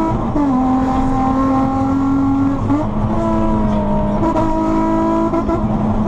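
Steady road and engine noise inside a moving car's cabin at highway speed: a low rumble under a humming drone that steps to a different pitch a few times.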